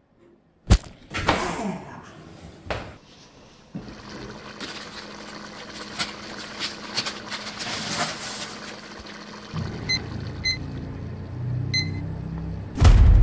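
A couple of sharp clicks and a falling swoosh, then water boiling hard in a stainless steel pot as pasta is dropped in, a steady bubbling hiss with a low hum. This is followed by three short high beeps from a Polder digital kitchen timer as its buttons are pressed, and a loud low rumble begins just before the end.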